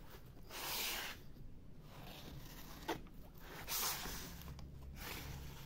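Flat metal blade scraping wet grout across a board, in separate strokes: a longer one near the start and a shorter one about four seconds in, with a small click between them.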